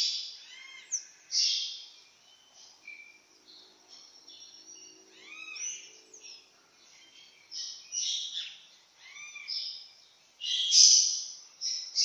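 Several birds calling in the trees: rough, scratchy chirps mixed with short arched whistled notes, the loudest burst of calls coming near the end.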